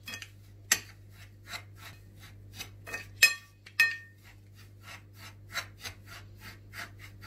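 Toasted kadayıf shreds coated in melted dark chocolate, rustling and crunching as a gloved hand stirs them in a glass dish, about three scrapes a second. A few sharper clinks against the glass stand out about a second in and again around three and four seconds in.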